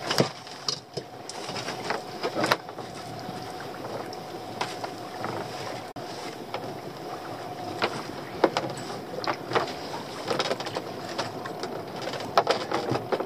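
A pot rope being hauled in by hand over the gunwale of a small open boat: scattered irregular knocks and rubbing over a steady hiss, with a cluster of knocks near the end as the lobster pot comes up alongside the hull.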